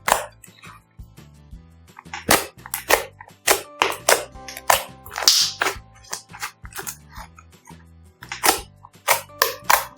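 Slime being squeezed and worked, giving irregular sharp pops and snaps about every half second, with a longer crackle around the middle, over upbeat pop background music.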